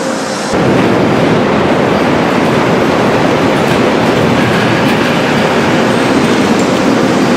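A large earthquake shake table drives a full-size 10-story test building through simulated quake shaking, giving a loud, steady rumbling and rattling. The rumbling begins abruptly about half a second in.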